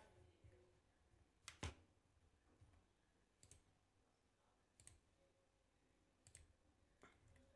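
Faint computer mouse-button clicks over near silence: a double click about one and a half seconds in, then four single clicks roughly a second and a half apart.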